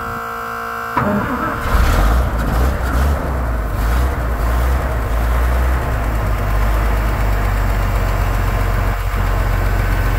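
A steady electric hum cuts off about a second in, and the long-stored engine of a 5-ton military 6x6 truck cranks briefly, catches and keeps running steadily.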